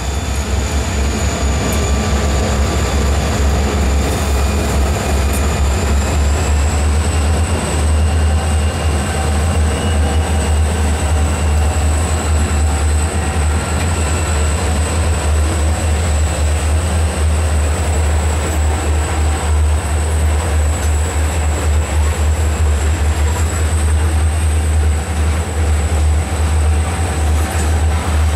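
EMD SD40-2 diesel locomotives rumbling past at close range, then loaded coal hopper cars rolling over the crossing, a steady heavy low rumble. A thin, steady high-pitched wheel squeal runs over it and rises slightly in pitch about six seconds in.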